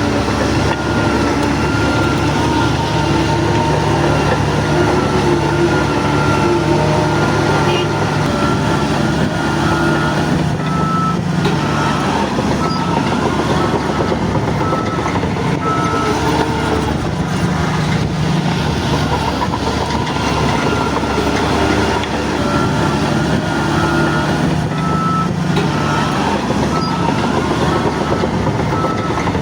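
Heavy diesel earthmoving machinery running with its engine under varying load. A reversing alarm beeps in an even series from about ten seconds in, stops, and starts again near the end.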